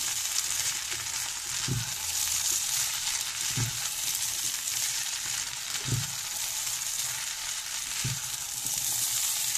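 Rice, kidney beans and sweetcorn sizzling in a hot oiled nonstick pan as a silicone spatula stirs them, a steady high hiss. Four soft low thumps, about two seconds apart, come as the spatula turns the rice over.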